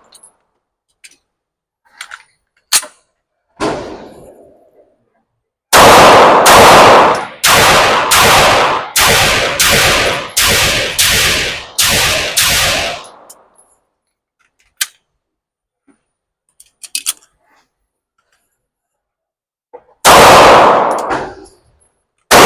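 Pistol fired in an indoor range: a string of about a dozen shots in quick succession, each report ringing off the walls, then a pause and two more single shots near the end. Faint clicks of gun handling come before the string.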